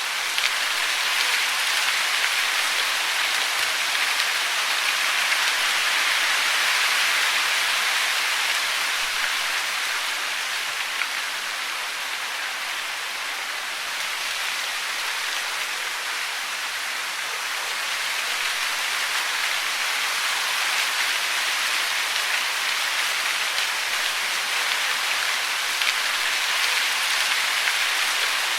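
Steady hiss of falling water, like rain pattering on a surface, swelling and easing slowly in level.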